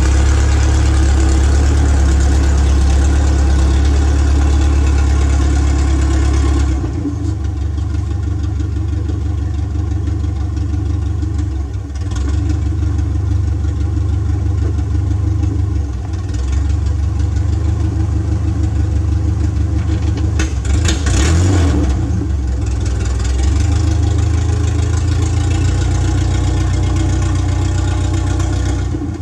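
Toyota 4Y four-cylinder petrol engine running steadily, mostly at idle. About seven seconds in, the sound turns duller.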